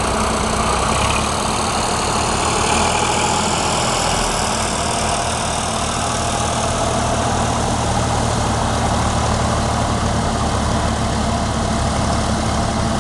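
Vintage tractor engines running steadily, their low note shifting slightly a second in and again about four seconds in.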